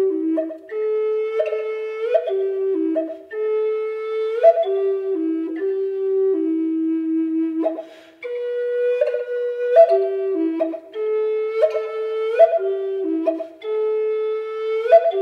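Background music: a solo flute playing a slow melody of held notes, the phrase repeating about every eight seconds.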